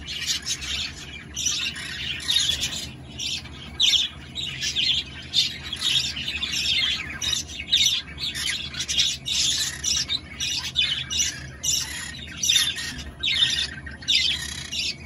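Green-cheeked conures squawking and chirping: a steady stream of short, harsh calls, one after another, with no pause.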